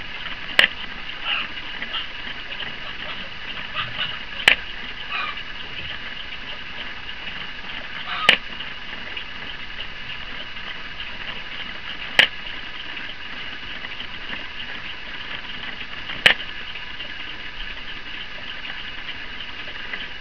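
LEGO Technic chime-hammer mechanism running with a steady whir. A hammer lever snaps down with a sharp click five times, about every four seconds, in the slow, even strokes of the hour strike of twelve.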